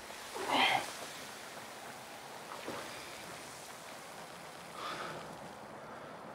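Steady desert wind, with three short rushing gusts, the loudest about half a second in.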